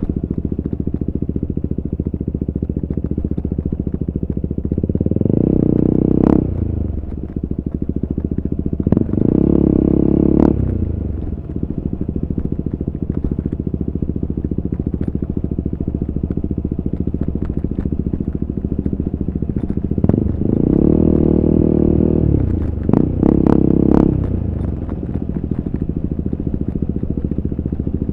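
KTM RC 390 single-cylinder engine through an Akrapovic exhaust, running steadily at cruise. Four times the throttle opens and the revs climb, then drop off, each time with a sharp crack as they fall.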